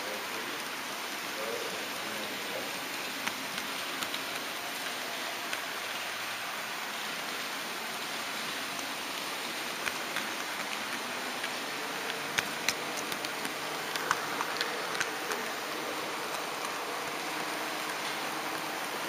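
Model train running along its track, picked up by a camera riding on it: a steady hiss with sharp clicks of the wheels over rail joints, bunched a little past the middle.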